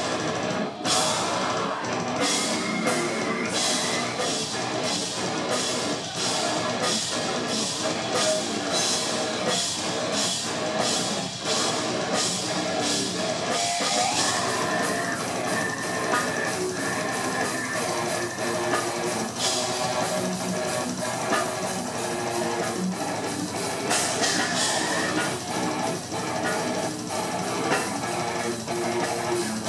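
Slam death metal band playing live, with heavy distorted electric guitars, bass and drum kit. Sharp drum and cymbal hits come about twice a second through the first half, then the playing turns denser and more even about halfway through.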